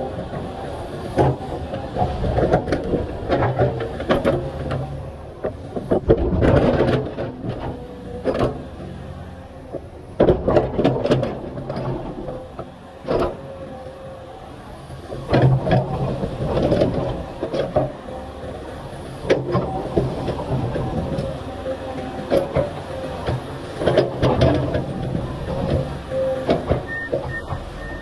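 Komatsu PC500LC excavator's diesel engine and hydraulics working under load, rising and falling in surges every few seconds as it digs and swings. Repeated clanks and knocks of the bucket and rock come through the engine noise.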